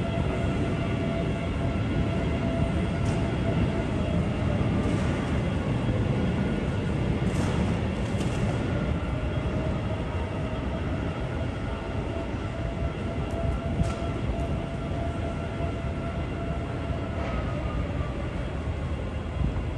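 A large vehicle running: a steady low rumble with several held whining tones, one of which slides down in pitch near the end.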